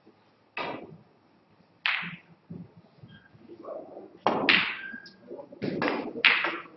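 Snooker balls clicking: a couple of single sharp clicks, then a cluster of louder clicks in the second half as the cue strikes the cue ball and the balls knock against each other and a cushion.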